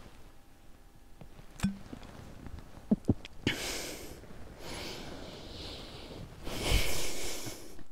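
A woman drinking from a small glass bottle: a click and a swallow, then heavy breaths blown out through the mouth, the loudest near the end.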